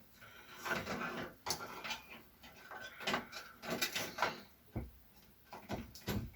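Scattered clicks, scrapes and knocks of hands working among cables and parts inside a desktop computer case while seating an expansion card in its slot.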